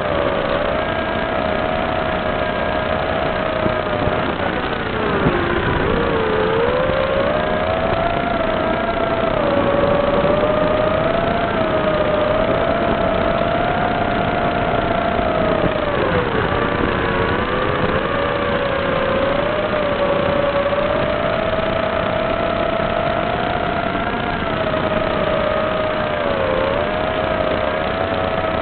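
Small FPV quadcopter's electric motors and propellers whining in flight, the pitch wavering up and down with the throttle and dipping sharply about five seconds in and again around sixteen seconds before climbing back.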